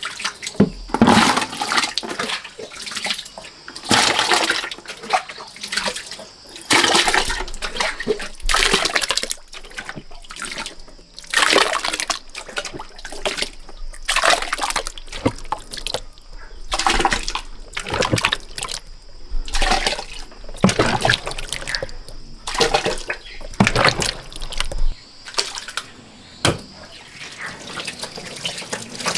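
Water splashing and sloshing in irregular bursts every second or two, like something being rinsed or swished by hand in water.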